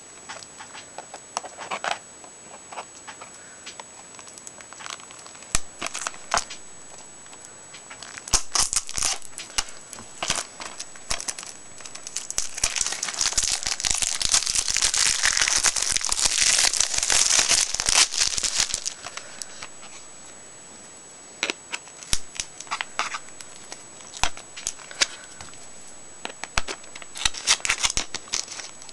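Plastic shrink-wrap being torn and crinkled off a DVD box set. There are scattered crackles and clicks, and about halfway through a dense stretch of crinkling that lasts around six seconds and is the loudest part.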